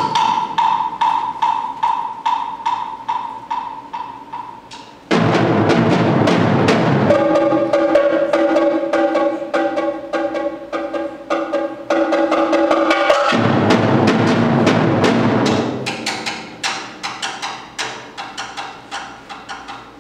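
Percussion ensemble of multi-setup drums and cymbals playing: a steady pulse of strokes with a ringing high note, loud full drum entrances about five seconds in and again near thirteen seconds, with held pitched tones in between, then a quieter steady pulse near the end.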